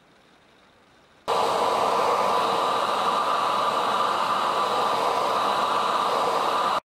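Hair dryer blowing: a steady rush of air with a faint whine. It starts abruptly about a second in and cuts off abruptly just before the end.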